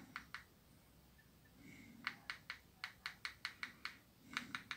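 Faint clicking of the bare keypad dome switches on a disassembled Nokia 3650 as a metal probe presses them: a few clicks at the start, then a quick, even run of clicks from about two seconds in, stepping through the screen's contrast setting.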